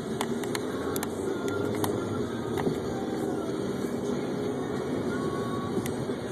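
Steady road and engine noise inside a moving car's cabin, with a few light clicks.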